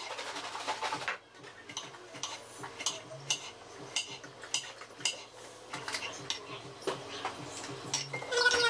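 Kitchen knife chopping an onion on a plastic cutting board: short, unevenly spaced knocks of the blade on the board, about two a second.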